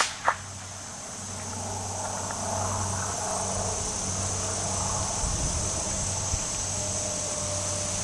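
A single .22 LR rifle shot from a Hatsan Escort bolt-action rifle at the very start, followed about a third of a second later by a smaller sharp crack. Then a steady high insect buzz over a low rumble of wind.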